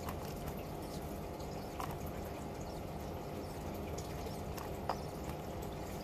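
Budgerigars moving about in a nest box: a few soft clicks and taps against a steady hiss and faint hum.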